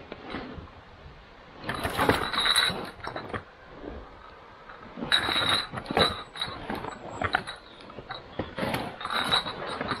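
Loaded two-wheeled hiking cart being hauled down over rocks: its wheels and metal frame bump and rattle in irregular clattering bursts, loudest about two, five to six and nine seconds in, with a high ringing note in the loudest ones.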